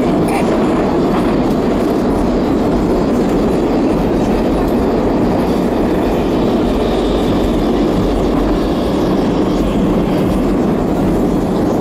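Moscow metro train running at speed through a tunnel, heard from inside a passenger car: a loud, steady rumble of wheels on rails and the car in motion.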